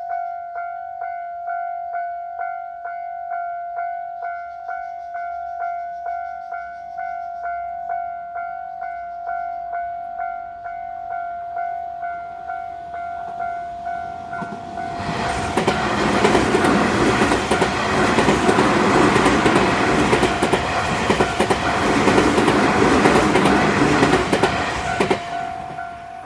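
Japanese railway level-crossing warning bell ringing at about two strokes a second. About fifteen seconds in, a train passes through the crossing loudly for about ten seconds, covering the bell, and the noise falls away near the end.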